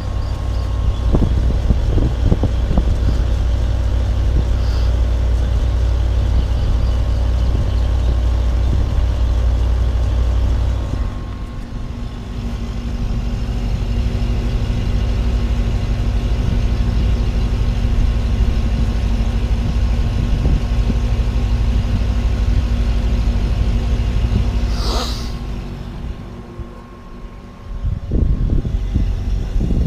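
Outdoor units of split air conditioners running: a steady hum with several held tones over a low rumble. It dips briefly about eleven seconds in and again near the end, with a short sweeping whoosh just before the second dip.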